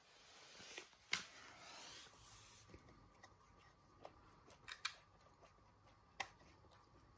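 Faint handling of small die-cast toy cars and a plastic toy fire truck: a soft hiss for the first couple of seconds, then a few light scattered clicks and taps.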